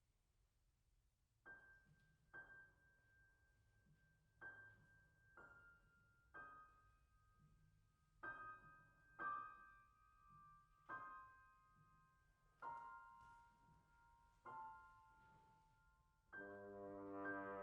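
Piano playing a slow, quiet opening of single high notes and pairs, struck roughly once a second and left to ring and fade. About a second before the end a French horn comes in with a sustained note over it.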